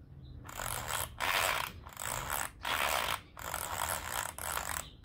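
A roll-off film system on motocross goggles being pulled repeatedly, winding clear film across the lens with a ratcheting rasp. There are about seven short pulls, roughly one every two-thirds of a second.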